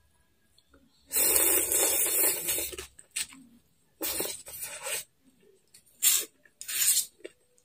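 A person slurping noodles from a curry noodle soup: one long, loud slurp about a second in, then several shorter slurps.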